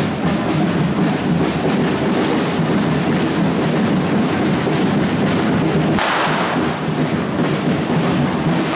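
Street correfoc: a loud, dense mix of hissing firework fountains and batucada drumming, with a fresh surge of hissing about six seconds in.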